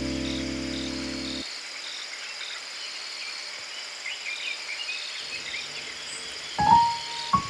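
Relaxation background music: a held chord fades out in the first second and a half, leaving a steady pulse of insects chirping with faint bird twitters. The music comes back in with new notes near the end.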